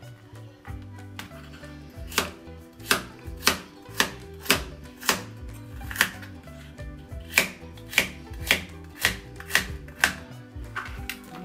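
Kitchen knife slicing lotus root thinly on a cutting board, each cut ending in a sharp knock on the board, about two cuts a second starting a couple of seconds in and quickening near the end.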